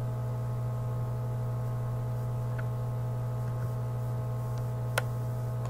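Steady electrical mains hum in the recording, a low drone with several fixed higher tones above it, with one sharp click about five seconds in.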